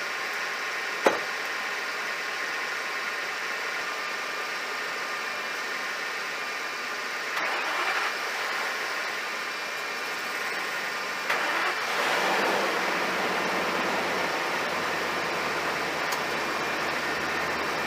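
Ford F450's gasoline engine, unstarted for over four years and on four-year-old gas, being started: a sharp click about a second in, brief rushes of noise around eight and eleven seconds in, then the engine catches and settles into a steady idle, over a constant hiss.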